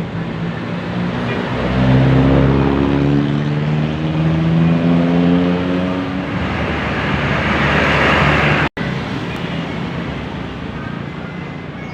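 A bus passing close by on the road, its diesel engine droning with a steady pitched hum, then a swelling rush of engine and tyre noise that peaks about eight seconds in. The sound cuts out sharply for an instant just before nine seconds, and road noise carries on afterwards.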